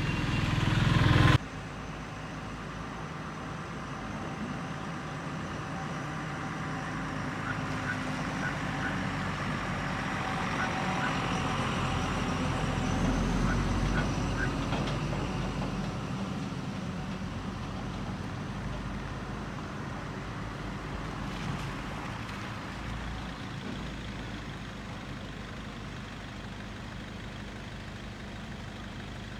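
A vehicle engine idling for about a second and a half, cut off abruptly; then a steady low hum with an even hiss.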